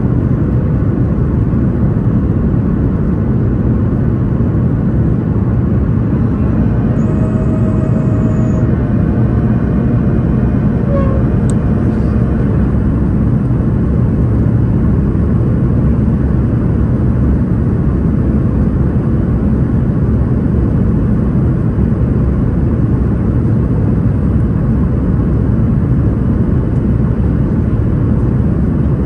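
Steady, loud in-flight cabin rumble inside a Boeing 737 MAX 8: its CFM LEAP-1B engines and the airflow over the fuselage, heard from a window seat over the wing. Faint brief tones come through the rumble between about seven and twelve seconds in.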